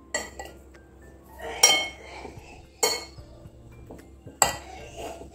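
Metal spoon clinking against a ceramic bowl while stirring grated vegetables: four sharp clinks with a brief ringing tone, spaced a second or more apart.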